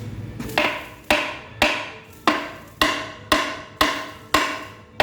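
Hammer blows on a steel part of a truck transmission, about two a second, each knock ringing briefly with a metallic tone.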